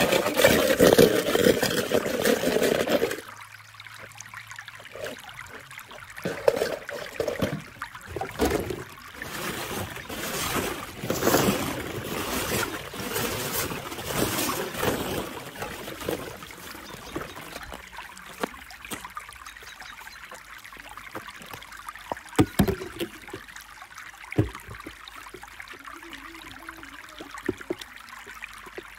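Water splashing and trickling over die-cast toy cars in a plastic bowl, loud for about the first three seconds. After that come quieter rustling and clattering as plastic pit balls are stirred by hand, with a couple of sharp clicks a little past twenty seconds.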